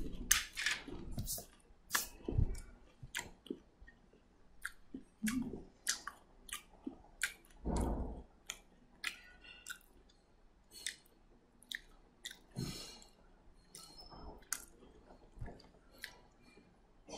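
Irregular short clicks and taps close to the microphone, with a few soft thuds, the strongest about eight seconds in.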